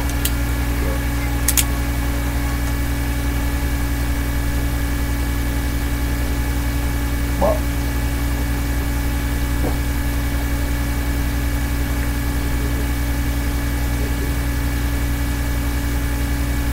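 A steady low hum that holds unchanged throughout, with a single sharp click about a second and a half in.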